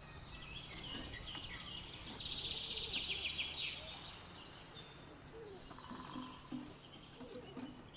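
Small birds chirping, with a fast trill lasting about a second and a half, starting about two seconds in.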